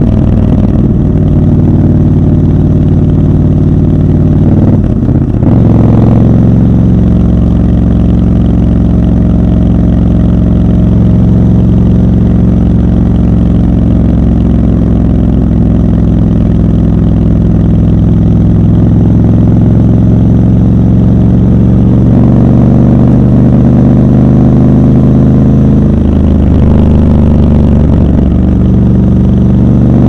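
Triumph Scrambler 1200 XC's 1200 cc parallel-twin engine running at steady cruising revs under the rider. The revs dip briefly about five seconds in and again a few seconds before the end, and the engine note starts to climb near the end.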